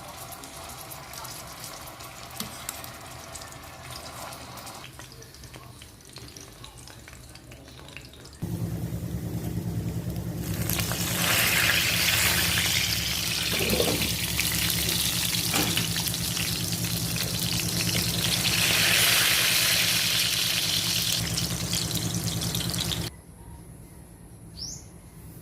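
Bananas frying in hot oil, sizzling loudly over a steady low hum from about ten seconds in. The sound cuts off suddenly, and a single rising bird chirp follows near the end.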